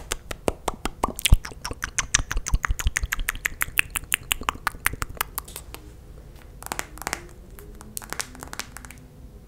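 Close-miked wet mouth clicks and lip smacks from glossed lips, fast at about eight to ten a second, thinning to scattered clicks after about five and a half seconds.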